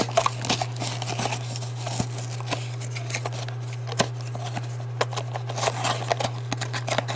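Sealed plastic booster-pack wrapper being handled and picked at while opening, with irregular crinkles, clicks and small rustles over a steady low hum.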